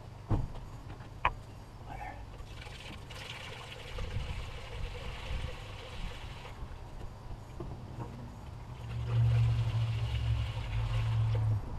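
Coolant poured from a plastic jug into a funnel on the radiator filler neck, trickling and splashing in two spells. There are two sharp knocks near the start, and a louder low hum under the second pour.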